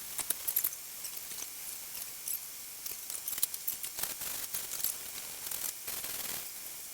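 Hand bodywork on Bondo body filler: a spreader scraping over the filler in short, irregular scratches and clicks, over a faint steady hiss.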